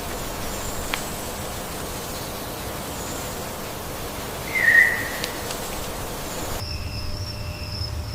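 Steady outdoor nature-ambience hiss with a single short chirp, the loudest sound, a little past halfway. Near the end it cuts to a steady high trilling of night insects such as crickets.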